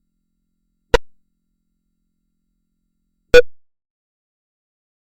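Two short, sharp clicks about two and a half seconds apart, each dying away quickly.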